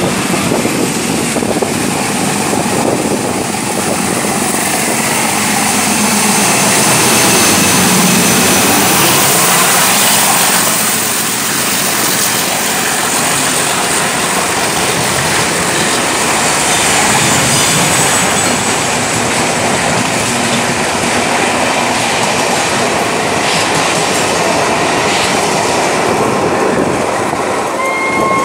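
Diesel passenger train running through a station at speed without stopping. The engine passes loudest about a third of the way in, followed by the steady clatter and rush of the coaches' wheels on the track.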